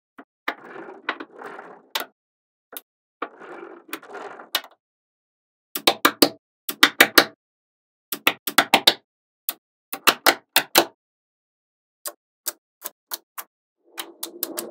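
Small magnetic balls clicking as they snap onto one another, some in quick clusters of sharp clicks and some as single clicks, with a softer rattle of the balls shifting and rolling against each other in the first few seconds.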